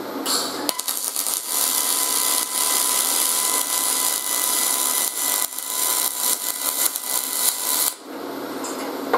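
MIG welding arc on aluminum from a YesWelder MIG-250 Pro at 23 volts: a steady crackling hiss that starts just after the beginning and cuts off about a second before the end as the bead is finished. The arc is running on settings the welder calls dialed in.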